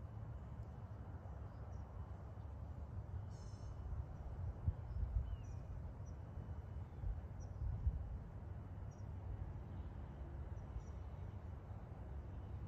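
Outdoor ambience: a steady low rumble that swells slightly about four and eight seconds in, with faint scattered bird chirps and one short bird call about three seconds in.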